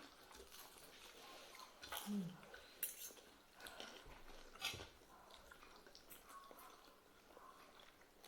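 Quiet eating sounds: faint chewing with a few light clicks, like cutlery on a plate.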